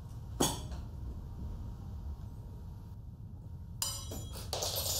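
Tableware clinking: one sharp clink about half a second in, then a short run of clinks and clatter near the end, over a low steady hum.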